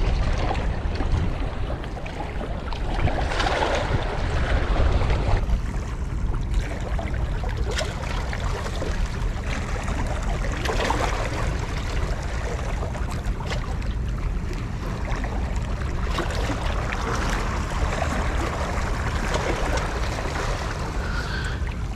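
Wind rumbling on the microphone, with seawater washing against the breakwater rocks, swelling and fading every few seconds.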